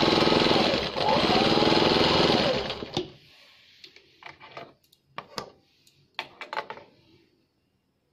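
Electric sewing machine stitching fast for about three seconds, easing off briefly about a second in, then stopping. A few quieter clicks and rustles follow.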